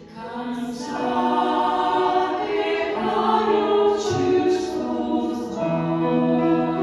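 Church choir singing a hymn in sustained, multi-part chords. It takes a breath at the start and begins a new phrase within the first second.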